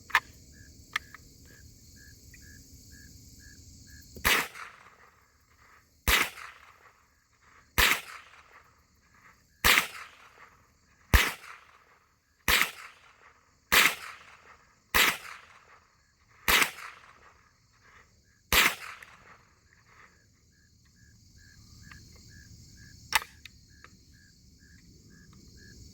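Chiappa RAK-22 semi-automatic .22 Long Rifle fired ten times, one shot every one and a half to two seconds, each crack trailing off in a short echo. Crickets chirp steadily underneath, and a single sharp click comes a few seconds after the last shot.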